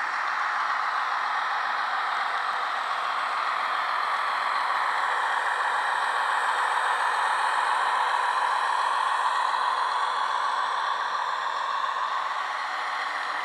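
HO scale model freight train, an Auscision NSW 44 class locomotive hauling wagons, running past on the track: a steady, noisy rolling sound of wheels on rails, swelling slightly in the middle and easing a little near the end.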